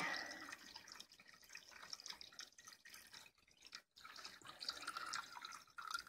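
White vinegar poured from a large jug into a plastic tub of padlocks, heard as faint trickling and dripping of liquid as the tub fills to cover the locks.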